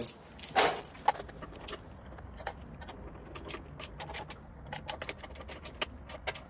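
Ratchet wrench on an extension clicking in short irregular runs as the handlebar clamp bolts are tightened, with a louder metal clank about half a second in.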